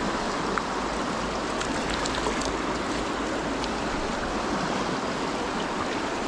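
Shallow mountain river rushing over rocks in rapids, a steady close-up water noise.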